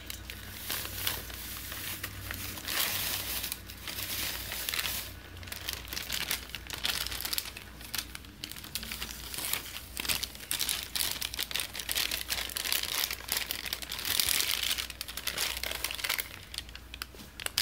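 Plastic inner bag of a boxed cake mix crinkling and rustling with irregular crackles as hands squeeze and shake it to empty the dry mix into a stainless steel bowl.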